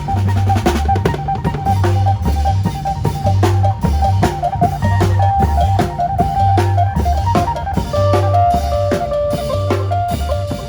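Isan phin band playing a lam phloen groove: a plucked phin lute melody over a repeating deep bass line and a steady drum-kit beat.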